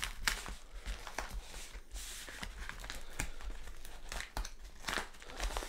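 Taped paper packaging being pulled open and crumpled by hand: irregular crinkling and tearing rustles.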